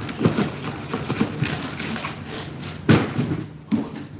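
Packaging being handled: plastic bag and cardboard rustling and scraping in irregular bursts, with a loud thud about three seconds in.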